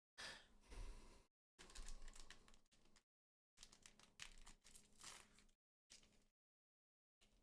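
Foil trading-card booster pack being handled and torn open, crinkling and rustling in several short bursts with dead silence between them.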